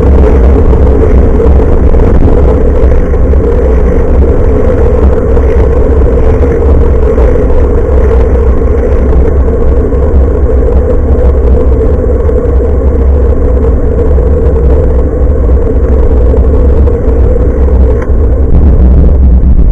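Loud, steady low rumble of bicycle riding noise picked up by an action camera's built-in microphone, hanging from the handlebars.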